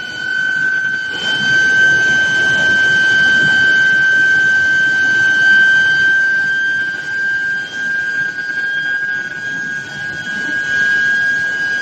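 Induction billet reheating furnace running, giving a steady high-pitched whine with fainter overtones that creeps slightly up in pitch, over a steady background of machinery noise.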